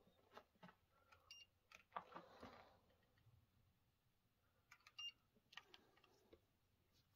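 Near silence in a small room: faint scattered clicks, with a soft rustle about two seconds in.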